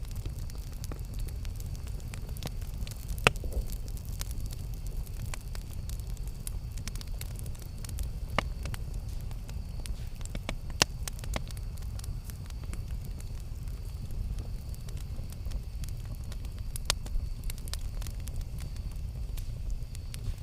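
Campfire burning: a steady low rumble of flames with scattered crackles and a few sharper pops from the burning wood.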